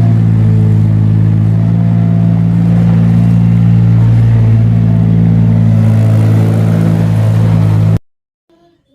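A loud, steady engine-like drone that holds one pitch throughout and cuts off suddenly about eight seconds in.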